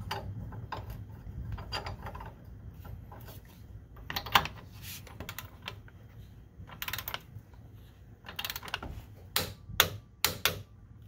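Ratcheting clicks of a digital torque wrench tightening the lower mounting bolt of a new front shock absorber toward 59 ft-lb. The clicks come in several short bursts, one per stroke of the handle, with gaps between them.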